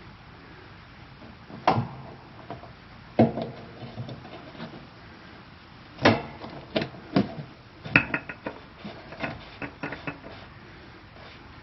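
Scattered metallic clinks and knocks, about six loud ones and a few lighter taps, from hands handling a new oil filter as it is fitted onto a Cummins Onan QG 5500 generator. One knock, about eight seconds in, rings briefly.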